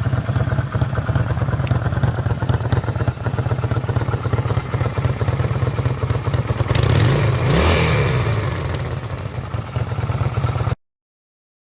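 Kawasaki VN800 V-twin engine idling, now without the knock it had before its new rubbers and gasket, with some wind on the microphone. About seven seconds in it is revved briefly and settles back to idle, and the sound cuts off suddenly near the end.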